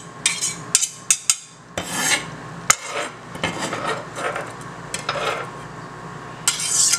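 Kitchen knife chopping pepper on a cutting board: quick knocks of the blade on the board, then rasping strokes as the blade scrapes across the board.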